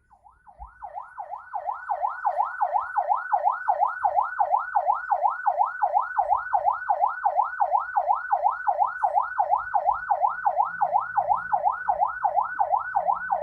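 Ambulance electronic siren sounding its fast yelp tone, rising and falling just under three times a second and building to full volume over the first couple of seconds. This is the tone used when carrying a patient in an emergency condition.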